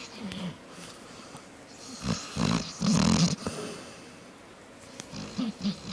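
A dog snoring, with one loud snore about two to three seconds in and softer snores before and after it.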